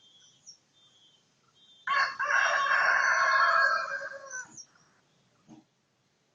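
A rooster crowing once: one long call of about two and a half seconds that falls in pitch at the end. Faint insect chirring runs underneath before the crow, and a soft low knock follows near the end.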